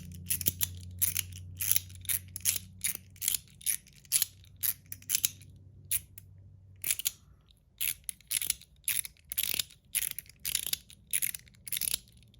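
Metal 01 EDC slider fidget with a mechanical liner, fitted with light springs, being slid back and forth: a run of sharp metallic clicks about two to three a second, with a short pause about halfway through.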